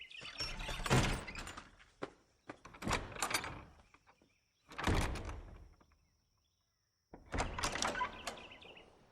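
Heavy door sounds: four separate thuds about two seconds apart, each dying away with a short echoing tail.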